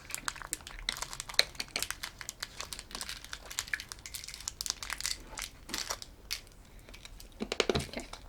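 Plastic candy packaging crinkling and crackling in the hands as it is handled and opened, a dense run of irregular crackles.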